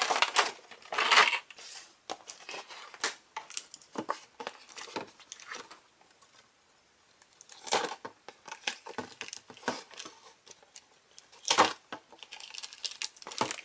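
Taped cardboard toy box and its packaging being handled and pulled at: irregular rustling, scraping and small clicks, with a short lull about halfway through.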